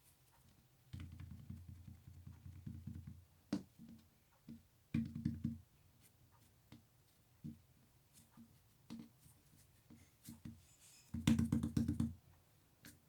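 Slime being squished and pressed by hand. There are three bouts of low squelching with crackly little pops, the loudest near the end, and scattered single clicks in between.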